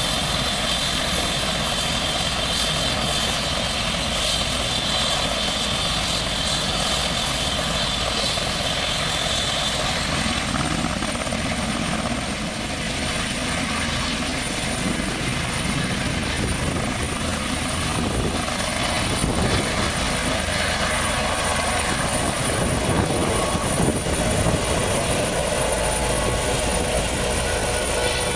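Airbus H135 (EC135) twin-turbine helicopter running on the ground with its rotors turning: a steady loud rotor and turbine noise with a high whine. About ten seconds in the whine shifts higher, and near the end the sound grows as the helicopter lifts off.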